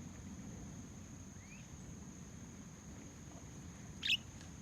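A budgerigar gives one short, sharp chirp about four seconds in, after a fainter rising chirp earlier on, over a steady low background rumble and a thin, steady high-pitched tone.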